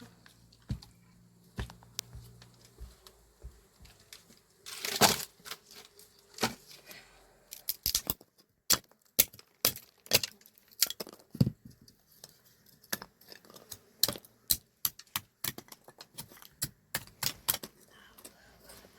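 Irregular sharp clicks and snaps, sparse at first and then coming thick and fast from about seven seconds in, with one louder rustling, tearing burst about five seconds in.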